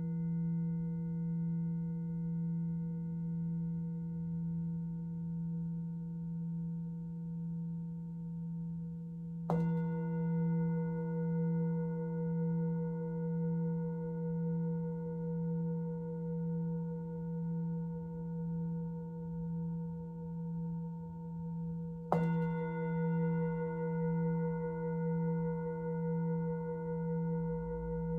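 Singing bowl ringing with a low, steady tone that pulses gently as it sustains. It is struck again twice, about a third of the way in and near the end, each strike bringing the ring back up.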